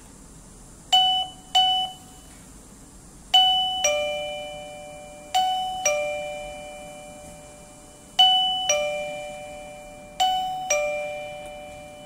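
Wireless door chime receiver giving two short single tones, then sounding a two-note ding-dong four times, a higher note followed by a lower one, each ringing out and fading.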